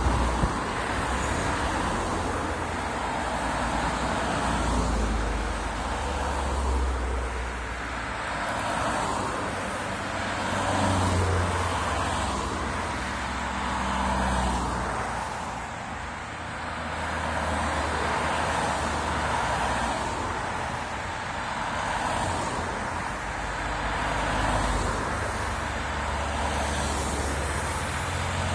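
A line of cycling-race team cars passing one after another, each engine and its tyre noise swelling as it comes by and fading as it goes, several times.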